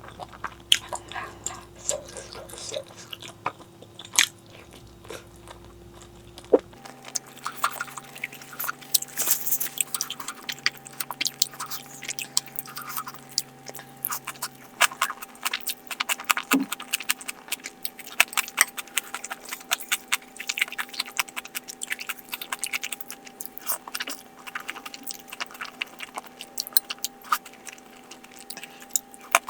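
Close-miked eating sounds: steady chewing with crunchy bites and wet mouth smacks, a dense run of short clicks.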